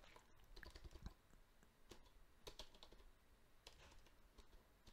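Faint, irregular keystrokes on a USB computer keyboard, typing out a short command.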